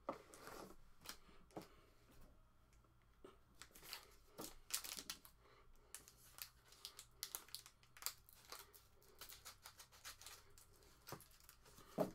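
Faint, irregular crinkling and snipping as the wrapper of a sealed Panini Dominion Basketball card pack is handled and cut open with scissors.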